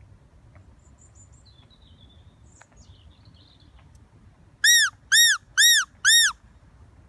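Hand-held predator call (fox call) blown four times in quick succession, about two squeals a second, each a short rise-and-fall whistle meant to lure foxes. Faint high chirps come earlier.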